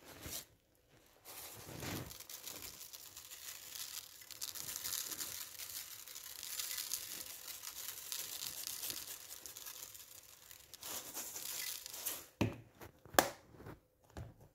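Sesame seeds shaken out of a clear plastic container and scattered over dough balls on a metal baking tray: a dry, uneven rustling hiss of seeds and crinkling plastic, followed by a couple of sharp clicks near the end.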